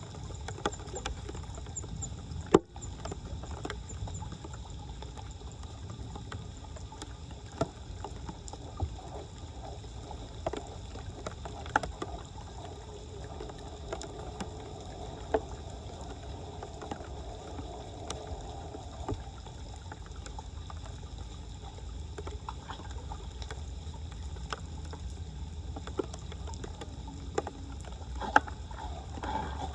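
Floodwater sloshing and gurgling over a steady low rumble, with scattered sharp knocks and clicks; the loudest knock comes about two and a half seconds in.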